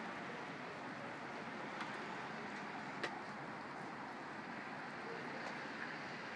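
Steady outdoor street background noise, a faint even hiss with no single clear source, with two faint clicks about two and three seconds in.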